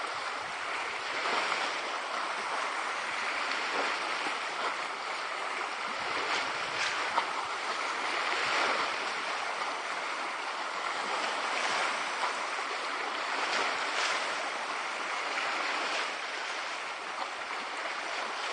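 Small lake waves lapping at the shore: a steady wash of water that swells and eases every couple of seconds, with an occasional sharper splash.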